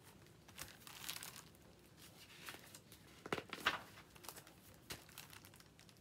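Paper rustling and crinkling as the pages of a picture book are handled and turned: a series of short rustles, the loudest a little past halfway.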